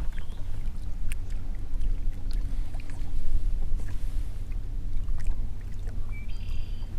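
Boat motor running steadily with a low rumble and a faint steady hum, with a few light clicks and a brief high chirp near the end.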